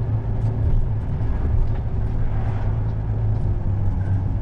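Articulated lorry's diesel engine running steadily while driving, heard from inside the cab as a constant low rumble with road noise.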